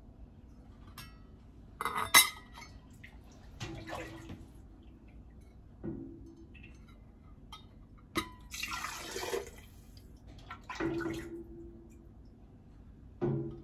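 Stainless steel canning funnel and ladle clinking and knocking against glass quart mason jars, the loudest knock about two seconds in, and a ladle of chicken broth pouring through the funnel into a jar for about a second just past the middle.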